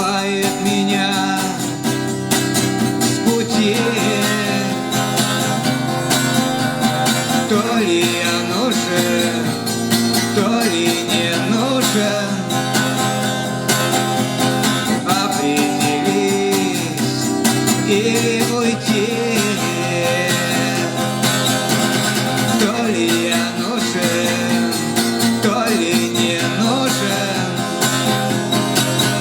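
Acoustic guitar played live: steady strummed and picked chords in an instrumental passage of the song.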